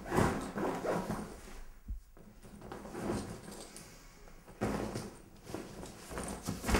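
Rustling, shuffling and knocking of a person moving about and handling things, with a sharp knock about two seconds in.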